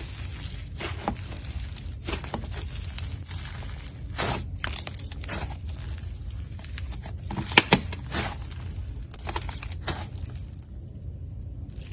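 Slime being squeezed and stretched by hand: irregular crackling pops and crunchy tearing sounds, with a sharp louder pair of pops about seven and a half seconds in.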